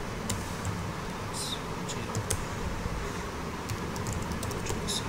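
Computer keyboard being typed on: scattered key clicks at an uneven pace, over a steady background hiss.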